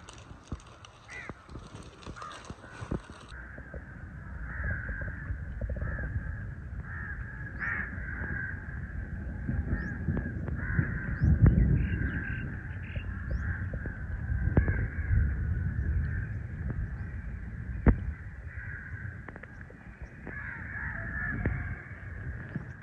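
A flock of crows cawing almost without a break, with a few faint chirps from smaller birds. Under them, a low wind rumble on the microphone swells and fades.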